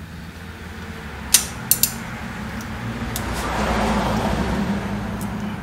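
A socket wrench on a spark plug in the cylinder head: a sharp metal click about a second in, then two quick clicks. A low steady hum runs under it, and a rushing noise swells up in the middle and eases off again.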